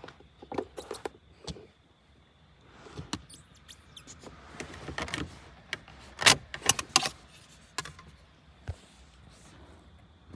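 Clicks, knocks and rustling from handling things inside a car, with a cluster of sharp clicks about six to seven seconds in.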